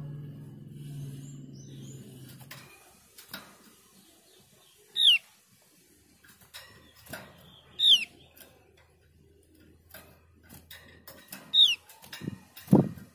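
Javan grey-throated white-eye (opior jawa) giving short, sharp, downslurred calls, three of them about three seconds apart, with light clicks and rustles between them as it hops in a wire cage. A low hum fades out about two and a half seconds in, and a dull thump comes near the end.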